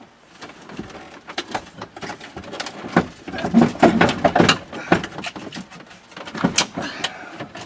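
Plastic dashboard of a 2005 Dodge Ram 3500 creaking, cracking and knocking in irregular clicks as it is pulled and jostled, still caught and not coming free.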